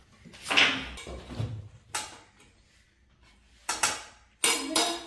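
A steel spoon clinking and scraping against a stainless steel plate in a handful of separate knocks, the loudest about half a second in.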